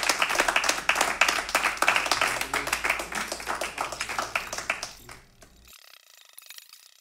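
Small audience applauding with dense, rapid hand-clapping that fades out about five seconds in.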